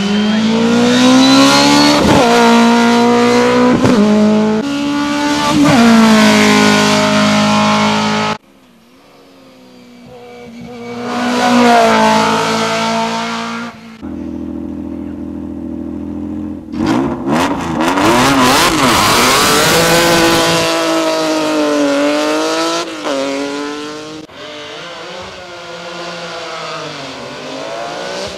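Group CN sports-prototype race car engines revving hard and shifting up through the gears, pitch climbing and dropping back with each change, across several separate runs. Around the middle, the 3-litre Argo JM21's engine holds steady revs at the start line, then launches and revs up hard.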